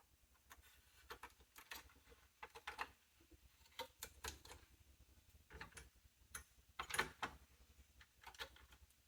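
Irregular small clicks and taps of computer hardware being handled: plastic and metal parts knocking and clicking, with the loudest cluster about seven seconds in.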